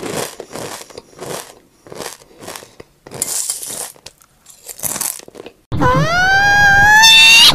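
A run of short, breathy bursts about half a second apart, then, about six seconds in, a toddler lets out a loud, high-pitched squeal that rises in pitch and holds.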